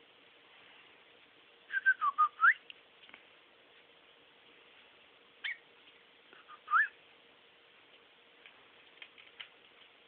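Cockatiel whistling: a quick run of short notes that dip and then sweep upward about two seconds in, then a short chirp and one more rising whistle around the middle. A few faint ticks follow near the end.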